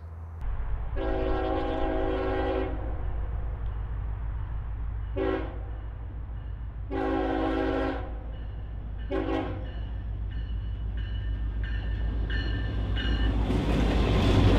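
CSX diesel locomotive's air horn blowing four blasts, long, short, long, short, over the steady low rumble of the locomotive. Near the end the rumble and rush of the locomotive grow louder as it draws close.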